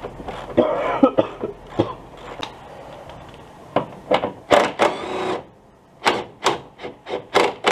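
Red cordless power tool driving a socket extension in short repeated bursts as it works loose a rear shock absorber's upper mounting bolt. The bursts come about two or three a second in the second half.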